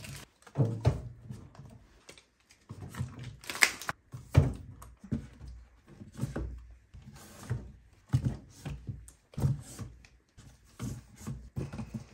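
Full cartons of UHT milk being set down one after another on a pantry shelf and against each other: a string of irregular dull thunks and knocks.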